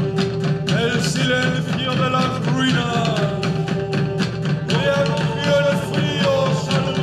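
Live band playing a rock song with strummed guitar and a steady driving beat. A voice sings a line starting about a second in, breaks off, and sings another line in the second half.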